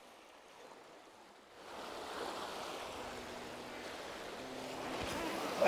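Ocean waves washing over the rocks of a jetty: a steady rush of surf that comes in about a second and a half in. At the very end there is a short, sharper sound that falls quickly in pitch.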